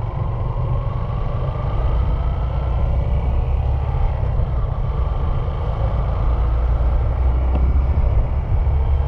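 Car driving, engine and road noise making a steady low rumble, with a faint whine that rises slowly over the first few seconds.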